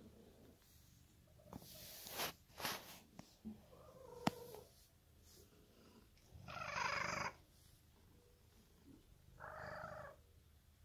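Domestic cat purring steadily while being stroked. Several short rustling noises break in over it, the longest about two-thirds of the way through, with a single sharp click near the middle.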